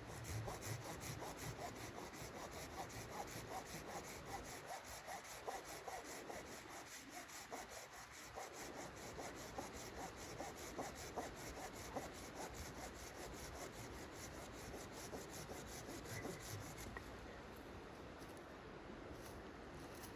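Hand saw cutting wood in quick, even strokes that stop a few seconds before the end.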